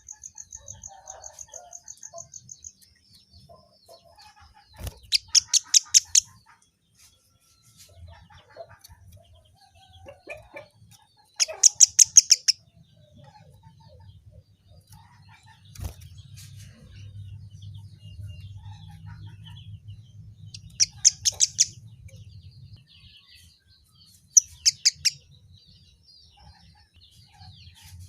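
Kemade bird calling: four loud bursts, each a rapid series of sharp, high notes, with a fast steady trill at the start and softer chirps in between.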